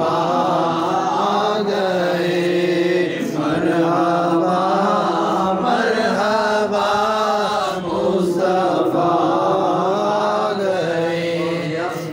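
A man chanting a naat into a microphone, drawing out long, wavering notes in phrases with short breaks between them.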